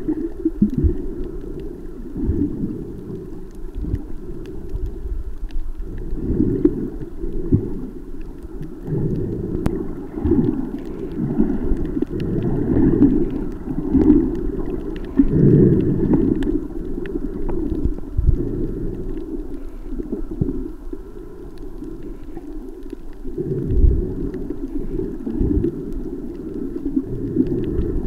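Underwater sound picked up by a camera in a waterproof housing: a muffled low rumble of moving seawater that swells and fades irregularly, with a few dull thumps.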